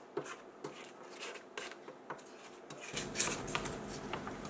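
Silicone spatula scraping and knocking against the sides of a stainless steel stand-mixer bowl of creamed butter dough, a run of short scrapes and taps. A low hum comes in about three seconds in.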